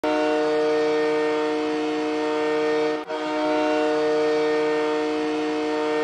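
Ice hockey goal horn sounding a steady chord of several tones in long blasts. It breaks off briefly about three seconds in, then sounds again.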